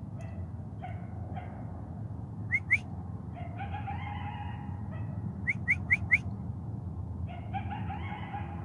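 A person whistling short, sharp rising notes: two about two and a half seconds in, then four quick ones around five and a half to six seconds. Between them, fainter drawn-out calls carry from a distance, over a steady low rumble.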